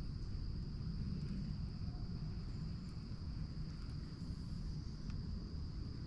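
Insects singing in one steady, high-pitched drone over a low rumble.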